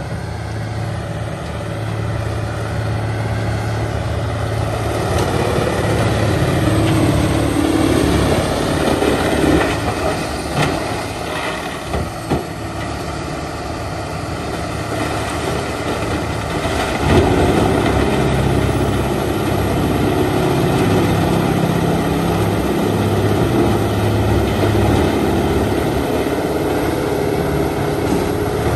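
Peterson 7710B horizontal grinder running under load as it grinds brush into mulch: a steady diesel engine drone that swells and dips as material feeds in, with a few sharp knocks partway through.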